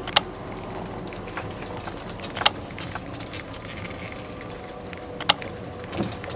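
Steady rumble of a car, with three sharp clicks about two and a half seconds apart.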